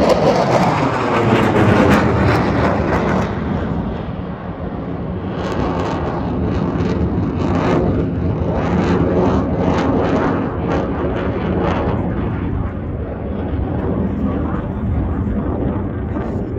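Dassault Rafale F3R fighter's twin Snecma M88 turbofans: loud jet roar as the aircraft passes and climbs away. It is strongest in the first couple of seconds, then turns into a ragged crackling rumble that steadies out near the end.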